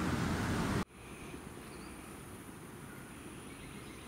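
A loud rush of outdoor noise that cuts off under a second in, then quiet ambience with a steady high insect drone and a few faint chirps.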